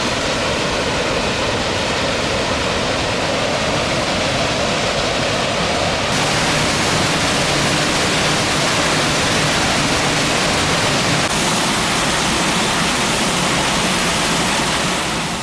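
Rushing water of the Rifle Falls waterfall, a loud, steady rush. Its tone shifts slightly about six seconds in and again near eleven seconds.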